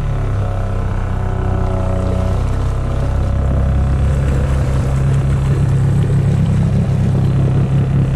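Honda Foreman 520 ATV's single-cylinder engine running steadily while it wades through creek water on a snorkel intake, its note growing louder about three seconds in. Water sloshes around the machine.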